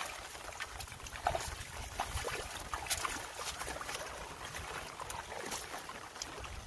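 Water splashing and trickling, with many small scattered splashes and knocks from a catch of fish and a fishing net being handled at the water's edge, over a low rumble.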